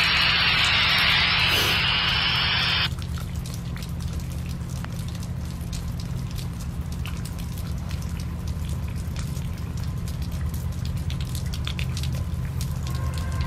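Rain falling, with scattered sharp drops ticking close to the microphone over a steady low rumble. A loud rushing hiss for the first three seconds cuts off abruptly, and a chord of steady tones comes in near the end.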